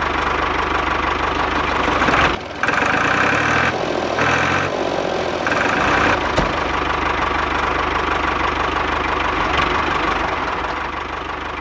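Small motors of a home-made toy tractor and drilling machine running steadily with a fast buzzing rattle, a higher whine cutting in three times in the first half.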